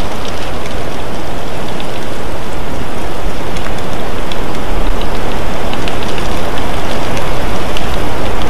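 Loud, steady rushing noise of wind buffeting an outdoor nest camera's microphone, with scattered faint ticks.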